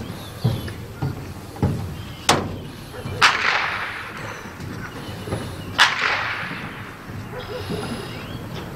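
Two blank-pistol shots about two and a half seconds apart, each a sharp crack followed by a trailing echo, with a lighter crack shortly before them: the gunfire fired during obedience heelwork to test the dog's steadiness to shots.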